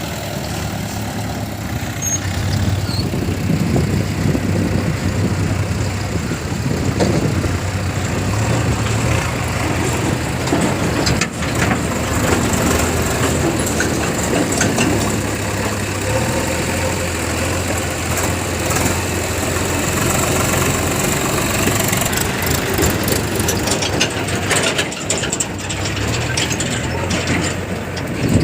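Diesel engines of a JCB 3DX backhoe loader and a tractor running steadily, the low engine note shifting in level now and then, with some short clatter near the end.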